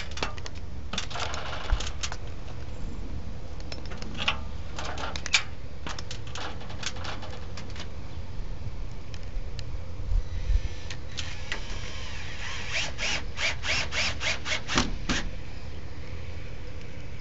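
Drill driving a screw through aluminum fascia into the corner: scattered clicks and knocks of the metal being handled, then a short whir and a quick run of clicks a few seconds before the end, over a steady low rumble.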